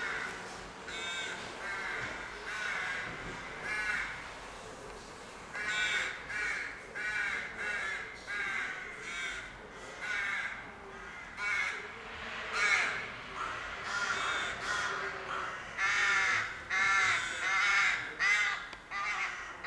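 Rooks at a rookery cawing, many harsh calls overlapping. The calls are spaced out at first, then come thicker and louder from about a quarter of the way in.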